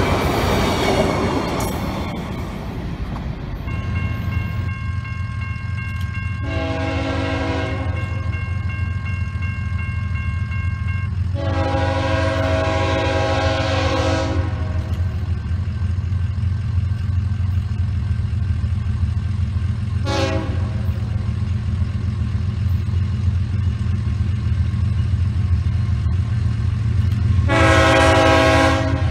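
Freight train cars clattering past for the first couple of seconds. Then an approaching diesel locomotive sounds its air horn for a grade crossing in the standard long, long, short, long pattern, over a steady low rumble.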